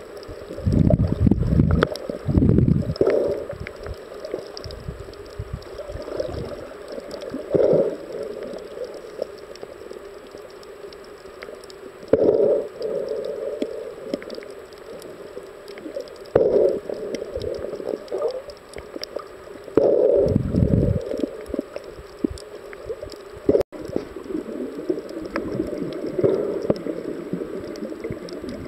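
Underwater sound picked up by a snorkeler's camera: muffled water sloshing and gurgling, swelling irregularly every few seconds, with a few deep rumbling surges.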